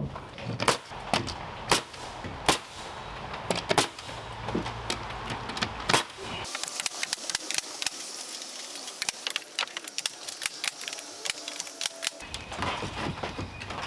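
Pneumatic nail gun firing a string of sharp, irregular shots as sheathing is nailed onto wall studs.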